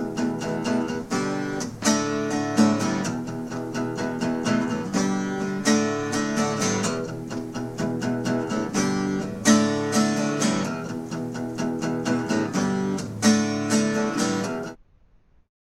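Background music played on acoustic guitar with steady strummed and picked chords, cutting off suddenly near the end.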